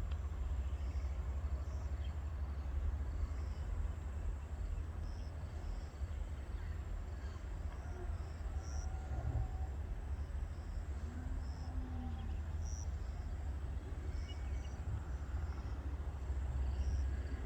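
Steady low rumble, with faint short high chirps repeating about once a second, like insects calling.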